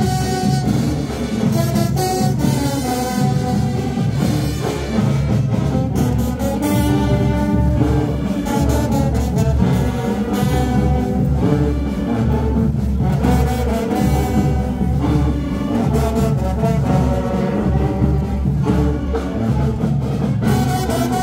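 Marching band playing a brass tune, with trumpets and trombones over drums.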